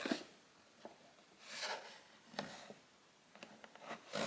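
Faint rubbing and handling of a toy's cardboard-and-plastic blister packaging, with a soft swell of rustle and a light click about two and a half seconds in.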